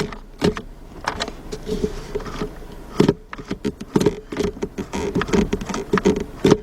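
Irregular clicks, knocks and rattles of the automatic gear shifter assembly being worked by hand, its plastic and metal parts moving and snapping.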